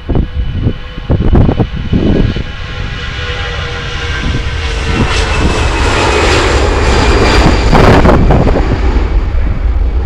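Jet airliner's engines whining and rumbling as it moves along the runway, the sound swelling to its loudest about eight seconds in. Wind gusts buffet the microphone in the first couple of seconds.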